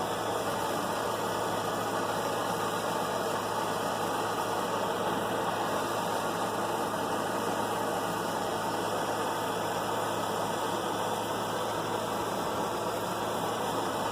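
Small handheld gas torch burning steadily with an even rushing noise over a low hum, heating a sword blade to draw its temper.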